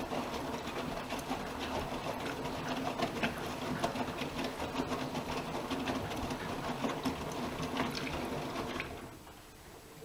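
AEG Öko-Lavamat Lavalogic front-loading washing machine tumbling its load: the drum motor runs with water and laundry sloshing and small clicks. It drops away about nine seconds in as the drum pauses between turns.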